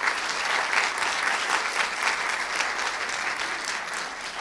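A small seated audience applauding to welcome a speaker: a dense, steady patter of many hands clapping.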